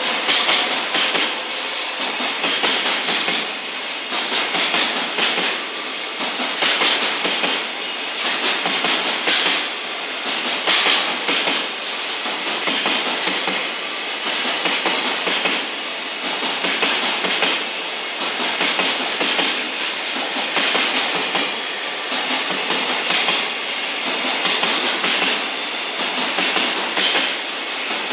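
Freight train's container wagons rolling past, their wheels clattering over the rail joints in a steady repeating clickety-clack over a continuous rolling rumble.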